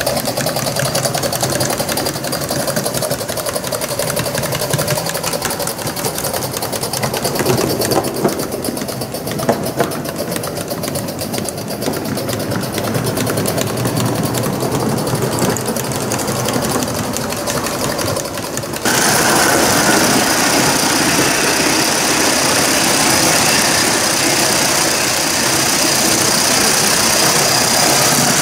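Gauge 1 live-steam Aster GWR pannier tank locomotive running with its train: a fast, even patter of exhaust beats and wheels on the track. About two-thirds of the way through, the sound suddenly turns louder and hissier, and it stays that way.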